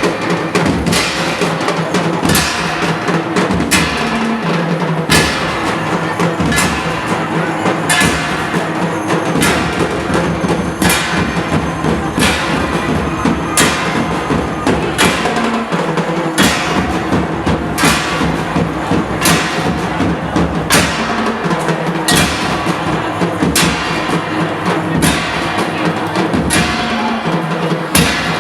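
Street-dance music played on drums and percussion, with a steady beat. Loud strikes land about every second and a half over sustained low notes.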